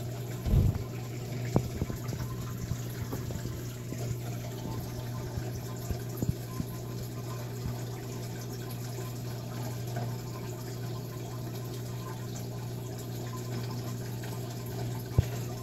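A steady low hum with an even hiss over it, and a low thump about half a second in.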